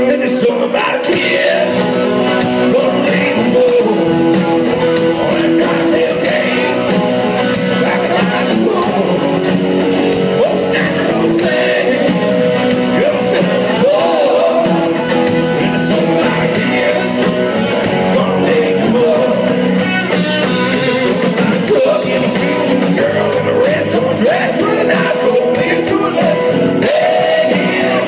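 Live rock band playing a song, a lead singer over guitars and drums, loud and steady throughout.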